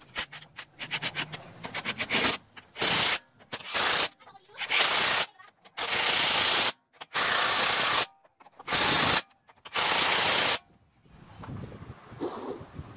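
Rapid ratcheting clicks of a hand tool for about two seconds, then seven short hissing bursts, each about half a second to a second long, with brief gaps between them.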